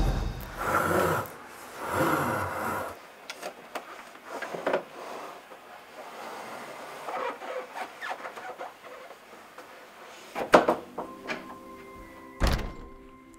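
Soft background music with scattered knocks and thuds. Two sharp thumps come near the end, and a steady held chord sets in under them.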